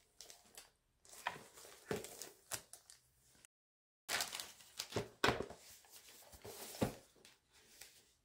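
Clear plastic wrapping crinkling and rustling in irregular crackles as it is pulled off a cardboard box, with a few light clicks of the box being handled; the sound drops out completely for about half a second partway through.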